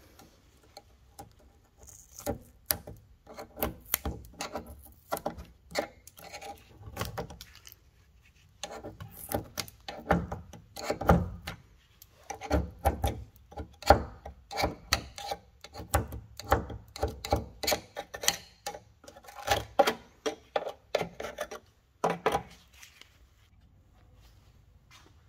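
Hand sanding on car bodywork: a run of short, rasping back-and-forth strokes, about two a second at its steadiest, with a pause part-way through and stopping a few seconds before the end.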